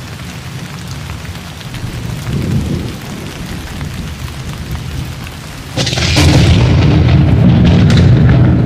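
Thunderstorm: rain hiss under a low rumble of thunder, then a sudden loud thunderclap about six seconds in that rolls on as a heavy, sustained rumble.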